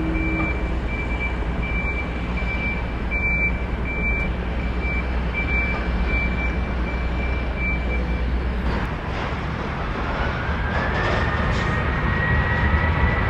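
Jet airliner engines running with a steady rumble and roar, under a short high beep repeating every half second or so that stops about eight seconds in. Near the end a whine rises in pitch and then holds steady as the engines spool up.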